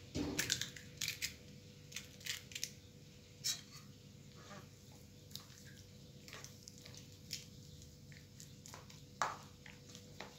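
Metal spoon tapping an eggshell to crack it, a quick run of sharp taps in the first few seconds, then scattered clicks and scrapes of the spoon against a stainless steel bowl as the egg is stirred into mashed potato, with one louder clink near the end. A faint steady hum lies underneath.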